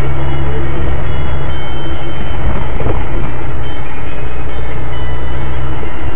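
A car driving on a city street, heard from inside the cabin: a loud, steady drone of engine and road noise, with a few short knocks about three seconds in.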